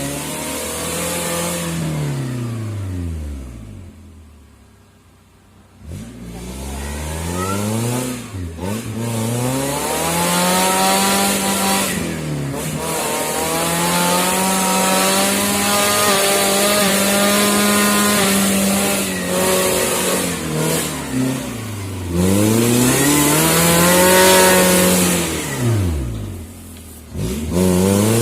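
Suzuki Jimny 4x4 engine revving hard and unevenly under load on an off-road climb. Its pitch rises and falls several times, with a short lull about five seconds in and a long stretch held at high revs in the middle.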